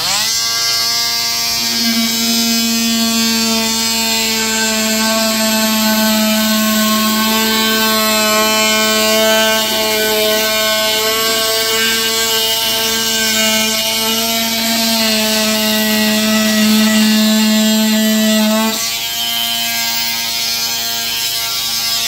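Corded handheld rotary cut-out tool spinning up and running steadily with a high whine as it cuts through drywall. About 19 seconds in, its note shifts and it runs on a little quieter.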